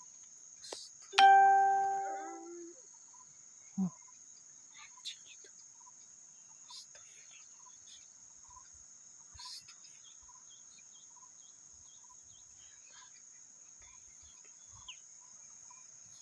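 A loud, clear ringing tone sounds about a second in, fades and drops to a lower note, like a two-note ding-dong. It is heard over a steady high-pitched insect drone in the forest. The sound is strange enough that those present wonder where it came from.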